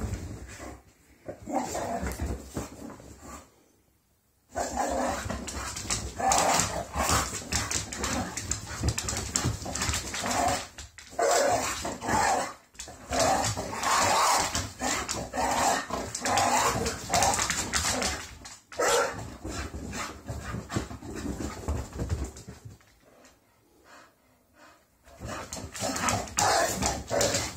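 English bull terriers barking in dense, irregular bursts as they play-fight, falling quiet briefly about four seconds in and again near the end.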